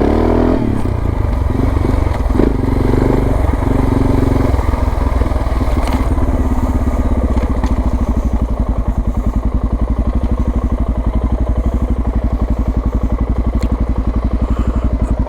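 Suzuki DR650's single-cylinder four-stroke engine running under way, then dropping after about four seconds to a steady, evenly pulsing low-revving beat, as at idle.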